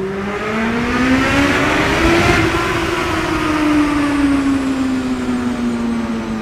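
Honda CB600F Hornet's inline-four engine, fitted with an SC-Project aftermarket exhaust, accelerating inside a road tunnel. The engine note climbs for about two and a half seconds, then falls slowly as the rider eases off.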